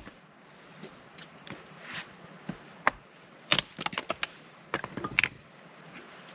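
Firewood being handled for a campfire: irregular sharp cracks and knocks, bunched together from about three and a half to five and a half seconds in.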